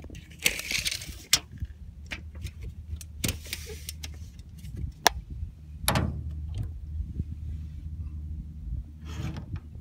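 Handling noises on a boat deck: a few sharp clicks and knocks and short rustling bursts over a steady low hum.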